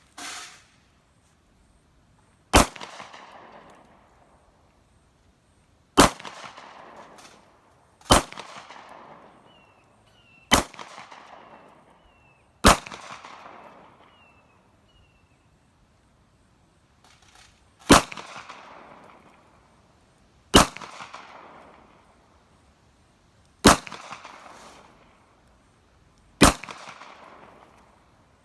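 Gunshots fired singly, nine in all, a few seconds apart with a longer pause in the middle; each is a sharp crack that trails off in an echo lasting a second or so.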